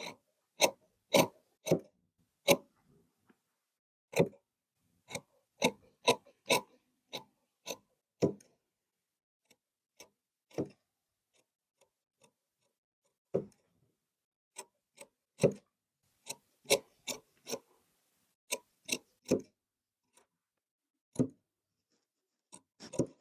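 Tailoring tools handled on a worktable: irregular sharp taps and clicks, some in quick pairs, separated by short silences, with a quick cluster near the end.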